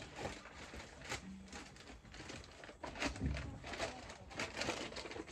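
Rustling and crinkling of a feed bag being handled, with scattered small knocks.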